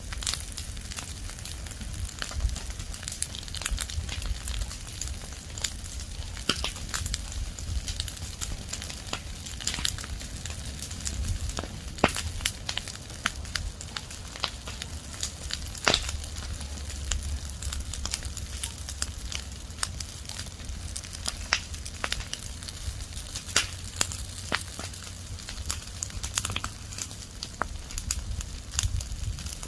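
Fire of burning leaves and branches crackling, with irregular sharp pops over a steady low rumble; the loudest pops come about twelve and sixteen seconds in.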